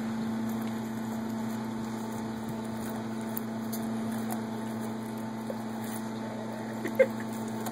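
A dog gnawing kernels off a cooked corn cob held to its mouth: faint scattered clicks of teeth on the cob, with a short sharp tick about seven seconds in. A steady low mechanical hum runs underneath and is the loudest sound.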